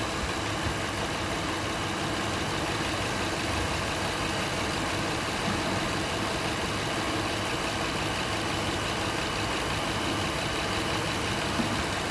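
2005 Honda Odyssey's 3.5-litre V6 idling steadily with the radiator cap off; the engine has a confirmed blown head gasket.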